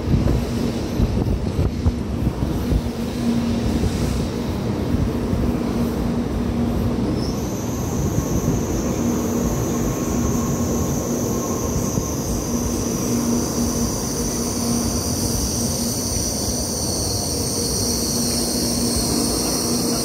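Tokaido Shinkansen train rolling into the platform and slowing to a stop, with a steady low rumble from the passing cars. A high squeal sets in about seven seconds in as the train slows, and it holds to the end.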